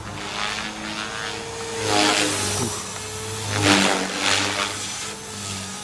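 Flybarless electric RC helicopter in flight: a steady motor and rotor hum with whooshing surges of the blades as it manoeuvres, the loudest about two seconds in and again near four seconds.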